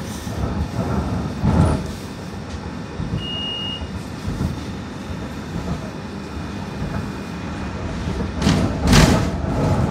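BN coastal tram running on its rails, a steady rumble of wheels and running gear. There are louder knocks about a second and a half in and again near the end, the latter the loudest, and a short high whine a little past three seconds.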